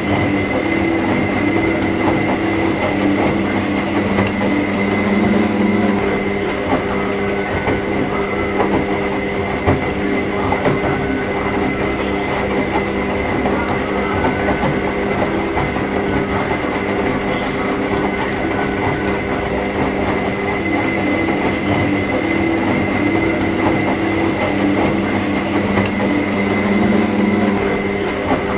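Washing machine running: a steady motor hum with a thin high whine over a continuous rumbling churn, holding even throughout.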